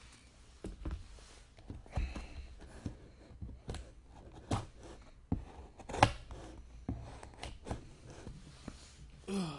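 Serrated knife blade cutting the tape seal on a cardboard card storage box, with scattered taps and knocks as the box is handled; the loudest knock comes about six seconds in.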